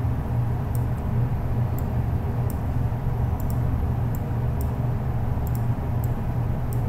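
Steady low hum with an even hiss, the background noise of the recording, broken by faint sharp ticks at irregular intervals about every half second.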